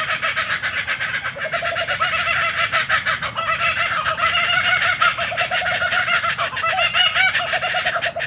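Laughing kookaburra calling: a long, loud run of fast chuckling notes, many a second, that stops suddenly near the end.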